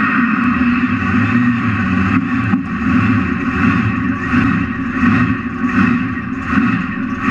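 A 2,600-horsepower mega mud truck's engine running loud and steady, heard from inside the cab, with slight repeated surges in level.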